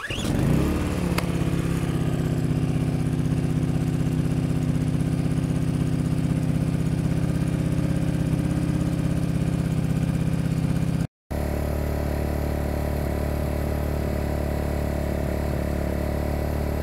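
Timco 1000i inverter generator's small four-stroke engine pull-started: it catches at once, revs up briefly and settles into a steady run. About 11 seconds in the sound cuts out for a moment and resumes with a closer, changed tone. The generator is running normally, its output indicator showing green.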